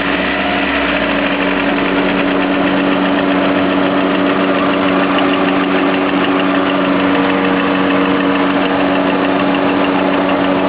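Lada Priora engine idling with a fast, even knock ticking through it. The knock is of unknown cause; it is there whether the engine is cold or hot and fades out when the revs rise.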